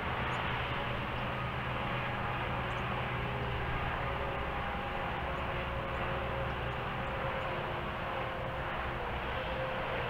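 Steady low rumble and hiss of distant vehicle noise, with a faint low hum.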